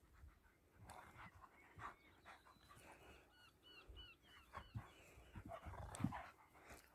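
Faint sounds of German shepherds and a husky at play: scattered scuffles and dog noises, with a short run of quick high chirps about three seconds in.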